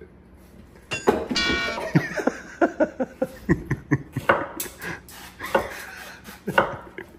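A stainless pan and pan lid struck together once about a second in, ringing like a bell. Laughter follows, then a few more metal clanks and short hisses of cooking-oil spray.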